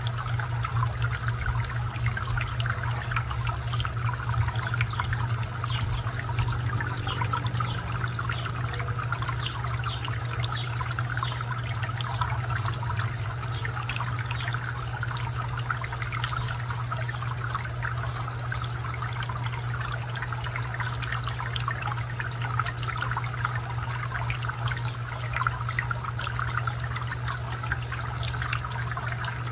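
Garden fountain water trickling and splashing steadily over a steady low hum.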